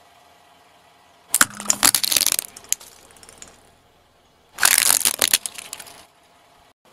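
Car tyre crushing shiny red Christmas baubles, which shatter with sharp cracking and crunching in two bursts: one about a second and a half in, the other about four and a half seconds in.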